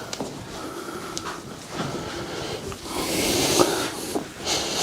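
A person breathing heavily: noisy, hissing breaths, with the loudest long exhale about three seconds in.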